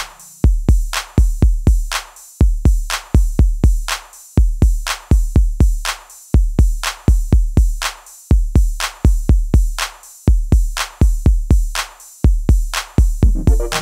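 Background music: an electronic drum-machine beat of deep kick drums with sharp clicks, in a pattern that repeats about every two seconds.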